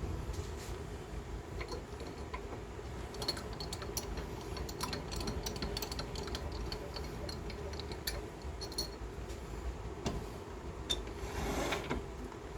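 Wood lathe running steadily, with scattered light clicks and a brief scratchy hiss near the end.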